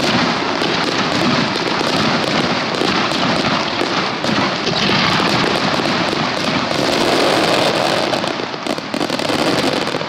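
Star mine fireworks barrage: shells launching and bursting in quick succession, their reports and crackles overlapping into one dense, continuous din.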